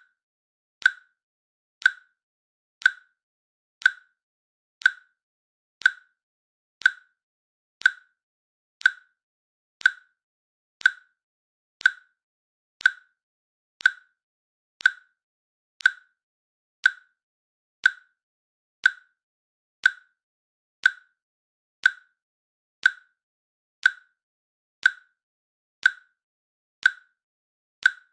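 Countdown timer's click track: one short, even click every second, each with a brief ringing tail.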